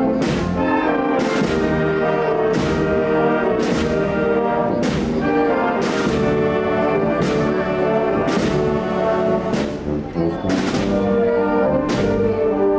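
Brass band of trumpets and trombones with percussion playing a slow processional march: sustained brass chords over a steady beat, with a cymbal crash on each beat about every 1.2 seconds.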